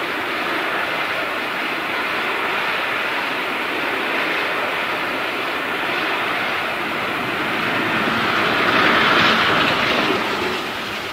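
A long train of Silberling passenger coaches rolling past at close range: a steady rushing rumble of wheels on rail. It swells about eight to ten seconds in, then begins to fade.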